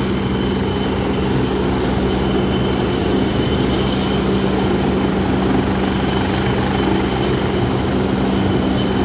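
Helicopter running on the ground with its rotor turning: a steady, unbroken drone with a thin high whine over it.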